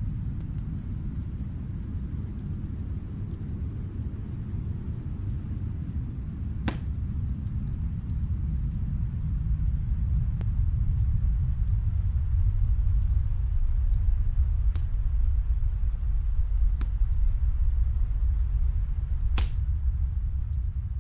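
Wood fire crackling in a fireplace: a handful of sharp pops, the loudest near the end, with small ticks between them, over a low steady rumble that grows a little louder about halfway.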